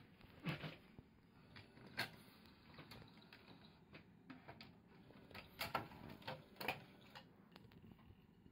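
Pioneer PD-F25A CD changer's disc-transport mechanism at work, moving a disc from the magazine onto the turntable. It makes scattered plastic clicks and clacks: loud ones about half a second in and at two seconds, a cluster around six to seven seconds, and light ticks between them.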